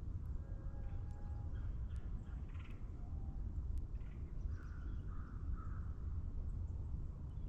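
Birds calling in a morning forest, with a run of three louder calls about four and a half seconds in, over a steady low rumble.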